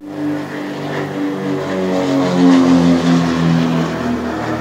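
Piper Seneca twin, with two turbocharged Continental TSIO-360 piston engines, flying low overhead with its propellers droning. It grows loudest about halfway through, and the pitch drops a little as it passes.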